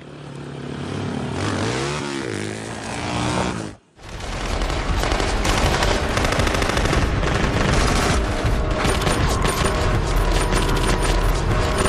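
A swelling sound with wavering, sliding tones that cuts off abruptly just before four seconds in; after a moment of silence, sustained rapid automatic-rifle fire.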